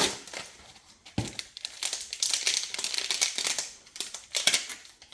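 Plastic protective packaging crinkling and rustling as it is handled and pulled off, with a single knock about a second in.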